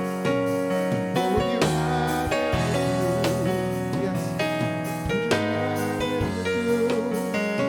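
Gospel-style piano or keyboard music playing sustained chords, with organ-like held tones under it.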